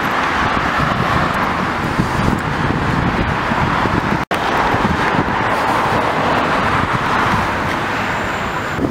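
Steady rushing wind and road noise from a bicycle ride along a city street with car traffic, broken by a brief silent dropout about four seconds in.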